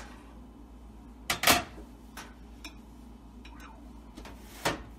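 Cookware being handled on a kitchen counter: a loud double knock about a second and a half in, a few light ticks, and another sharp knock near the end.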